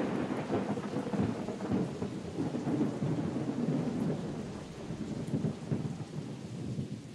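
Long rolling thunder rumbling after a nearby lightning flash, swelling and churning irregularly, then slowly fading near the end, with rain falling beneath it.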